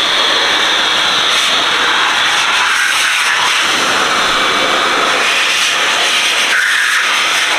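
Handheld blower running steadily, blasting air and water off a truck's wet wheel and tyre to dry it.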